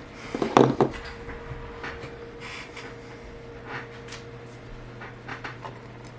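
Small knocks and clicks of tools and phone parts being handled on a work surface, loudest in a quick cluster about half a second in, then lighter scattered taps and rustles over a steady low hum.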